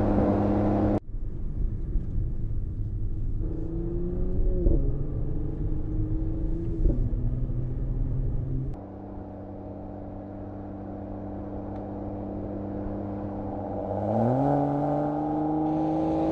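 Mercedes-AMG GLE 53's turbocharged 3.0-litre inline-six engine running. The sound changes abruptly about a second in, the pitch rises as it revs around four seconds in and again near the end, and there is a quieter, steady drone in between.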